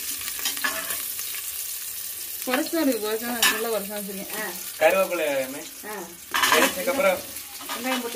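Food sizzling in hot oil in a cooking pot while being stirred, the spoon scraping against the pot. From about two and a half seconds in, a voice sounds over the frying.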